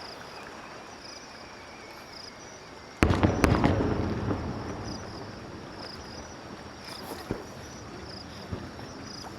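Aerial firework shells bursting: a sharp, loud bang about three seconds in, quickly followed by a second, with a crackling tail that fades over a second or two, and a few fainter pops later. Insects chirp faintly in the background.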